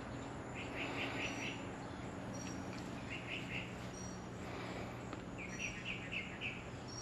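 Faint outdoor ambience: small chirping calls in quick runs of four or five pulses, three times, with scattered thin high tweets over a faint steady low hum.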